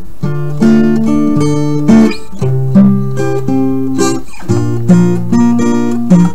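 Instrumental background music of plucked notes ringing over one another, with a stronger accent about once a second.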